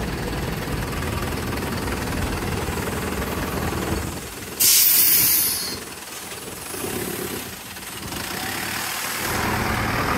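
Single-deck bus's diesel engine idling at a stop, then a sudden loud hiss of compressed air from the bus's air system about four and a half seconds in, lasting about a second. Near the end the engine rises as the bus pulls away.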